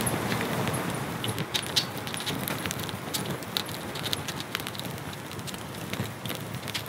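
Small campfire in a metal fire bucket crackling, with irregular sharp snaps and pops over a steady low background noise.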